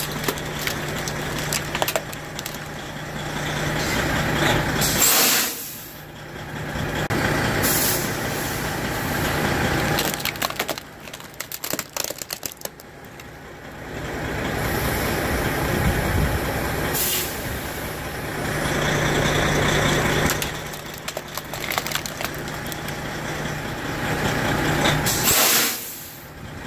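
Semi truck's diesel engine idling, with several sharp hisses of air brakes being released. Around the middle comes a run of crackling as a plasma TV is crushed under the dual tyres.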